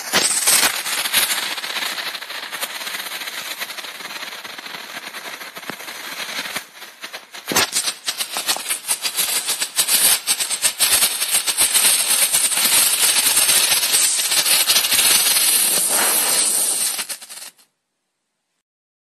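Strobe flashing fountain firework (Nico Strobe Blinkfontäne) burning: a hiss with a dense, rapid crackle of strobe pops. It drops away briefly about seven seconds in, resumes loudly, and cuts off suddenly shortly before the end.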